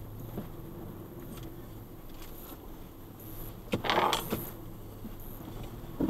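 The Toyota FJ Cruiser's 4.0-litre V6 running low and steady as the truck crawls over rough ground, heard from inside the cabin. About four seconds in, a loud metallic clatter and knocking as the truck jolts over the uneven terrain, with another knock near the end.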